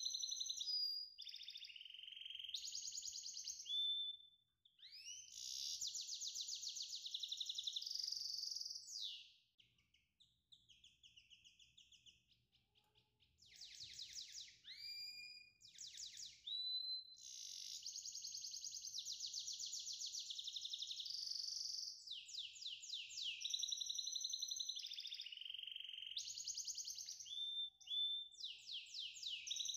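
A songbird singing a long, continuous song of rapid high trills and whistled notes that glide up and down, with a quieter stretch about a third of the way through.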